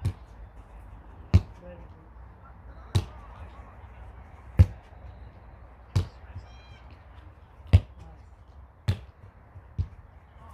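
A football being kicked again and again in passing or kicking practice: a sharp thud about every one and a half seconds, eight in all, the last one softer.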